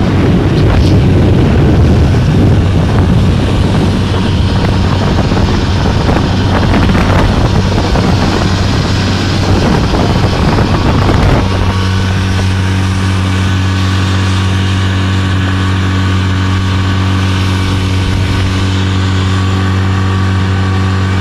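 Small outboard motor running steadily, pushing an inflatable boat across choppy water, with wind and splashing spray loud over it. About eleven seconds in the wind and splash noise drops away, leaving the motor's steady hum.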